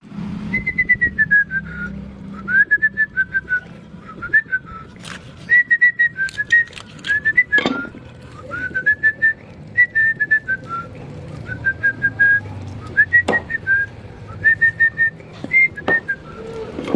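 A whistled tune in quick short notes that step and glide up and down, with a few sharp knocks scattered through it.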